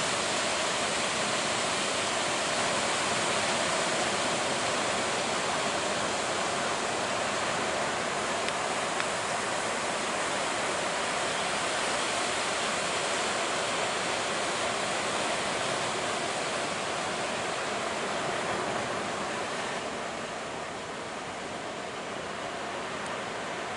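Ocean surf breaking at a river mouth: a steady rush of waves with no separate crashes standing out, easing a little near the end.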